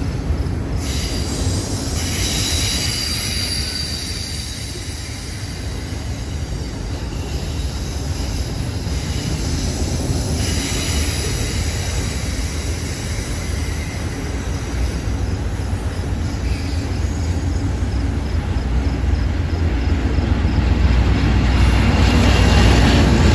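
Union Pacific double-stack intermodal well cars rolling past: a steady rumble of steel wheels on rail, with thin high wheel squeal on and off. A low diesel drone grows louder near the end as a mid-train locomotive approaches.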